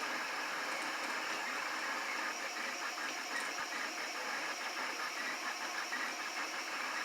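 Anycubic Kossel Linear Plus delta 3D printer running, its motors and fans whirring steadily under a rapid series of faint knocks. The owner is unsure whether this knocking is normal for the machine.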